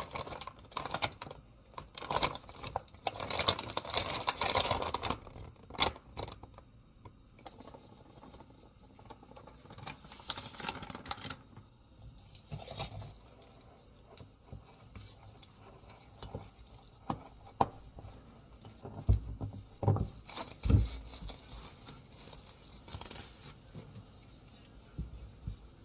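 Kitchen handling noises: packaging rustling and tearing, with scrapes, clicks and a few dull thumps.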